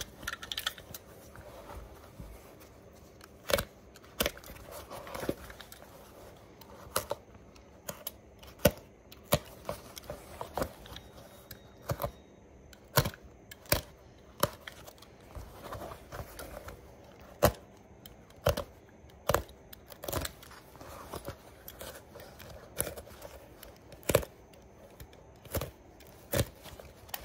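Scissors snipping through the stitching of a boot's worn heel lining: sharp, irregular snips about once a second, with soft tearing as the piece is pulled away from the seam.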